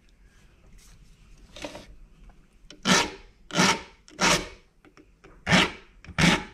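Flat file stroking across the depth gauges (rakers) of a saw chain clamped in a vise, lowering them below the cutters. One faint stroke, then about three seconds in five louder strokes about two-thirds of a second apart, with a short pause after the third.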